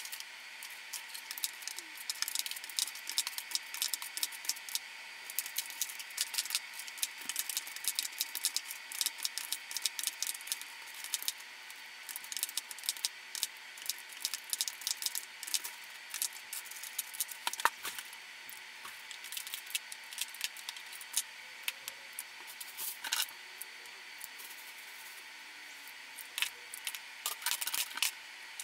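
Lipstick tubes clicking and tapping against each other and against a plastic grid drawer organizer as they are picked up and slotted into its cells: a dense, quick run of light clicks.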